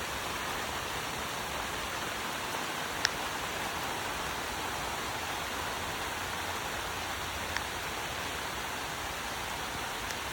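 Steady hiss of falling rain, with two small sharp clicks about three seconds in and again past seven seconds.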